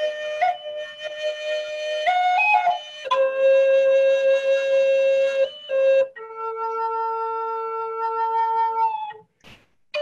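Solo flute playing slow, long held notes. The pitch changes a few times, and there is a brief break near the end before the next note.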